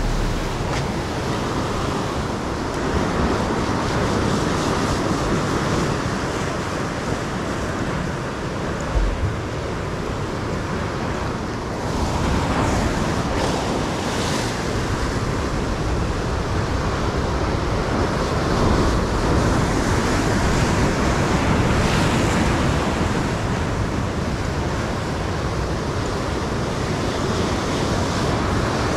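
Ocean surf washing onto a beach, a steady rush that swells and eases as waves come in, with wind buffeting the microphone.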